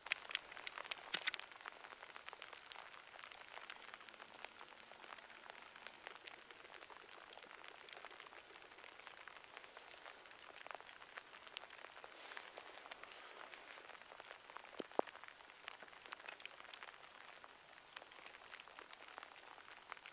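Light rain pattering faintly as many small scattered ticks, with a few louder clicks about a second in and one around fifteen seconds in.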